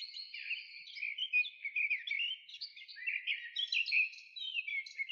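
Small birds chirping and twittering, a quick run of short high notes that overlap and rise and fall.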